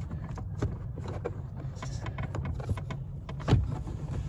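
Small hand wrench clicking and scraping on a bolt and metal under a car's dashboard as it is worked loose, with irregular light clicks and one louder knock about three and a half seconds in, over a low steady rumble.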